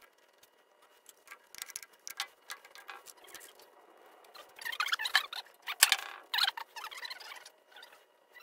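Hands working small metal parts on a diesel injection pump: irregular clicks, scrapes and rustling that start about a second in and grow busier in the second half.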